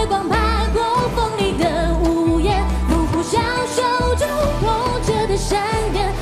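A woman singing a Chinese-style rock song with vibrato, backed by a live rock band of drum kit, bass and guitars.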